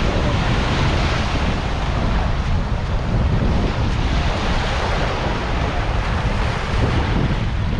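Wind buffeting the microphone with a heavy, fluttering low rumble over a steady rush of ocean surf.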